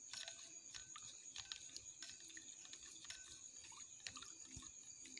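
Whisk stirring a thin milk mixture in a glass bowl: faint, irregular liquid sloshing and light ticks of the whisk against the bowl.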